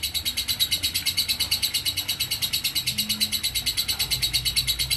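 Lovebird's ngekek: a long, unbroken, high-pitched chattering trill, about eight or nine notes a second. This is the nonstop 'konslet' style of ngekek.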